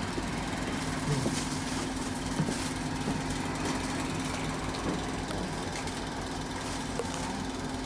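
Diesel train engine idling with a steady low hum while the train stands still at the station.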